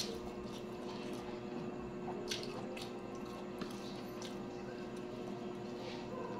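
Wet chewing sounds of a person eating rice and cabbage: scattered lip smacks and squishy mouth clicks over a steady low hum.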